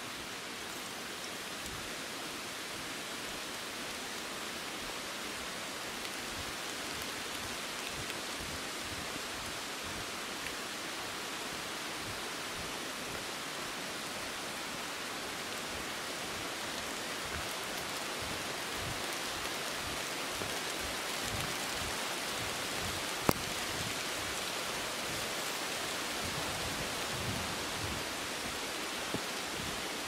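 Steady rushing of a mountain stream's rapids, with one sharp click about three-quarters of the way through.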